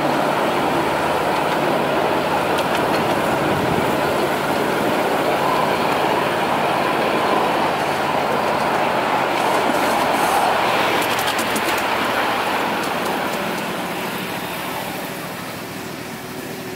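Ride-on miniature train rolling along its narrow-gauge track, the wheels rumbling and clattering on the rails. The noise fades over the last few seconds as the train slows.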